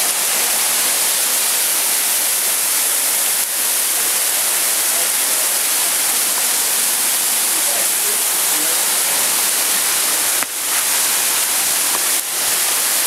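Small mountain waterfall and stream cascading over rocks close to the microphone: a steady, loud, hissing rush of water that dips briefly three times.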